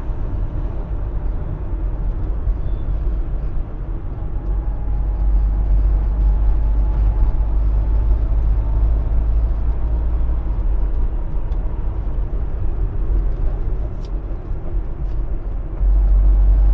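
Cabin noise of a Fiat Fiorino van driving: a steady low engine and road rumble heard from inside the cab, growing louder near the end.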